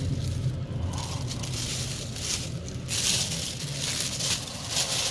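Car running with a steady low engine drone, overlaid by irregular rustling and crackling noise surges on the microphone.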